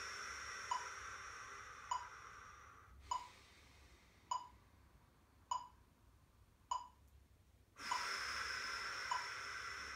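Digital metronome clicking at 50 beats per minute, about one click every 1.2 seconds, with long audible breaths paced to it. One breath fades out about three seconds in, then there is a pause, and another long breath starts about eight seconds in.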